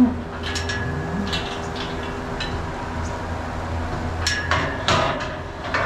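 Steel livestock gates and pen panels clanking and rattling as cattle are worked through the pens. There are a few sharp metallic clanks with a short ring in the first second and a quicker run of them near the end, over a steady low hum.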